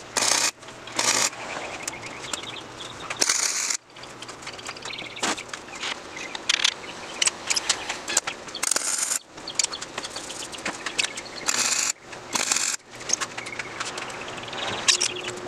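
MIG welder laying a series of short tack welds on steel timing-chain sprockets, about six brief crackling bursts of arc, with small metallic ticks and handling noise between them over a low, steady hum.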